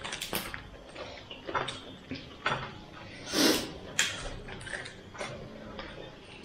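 Eating and handling food: scattered short clicks and crunches, with one louder noise about three and a half seconds in.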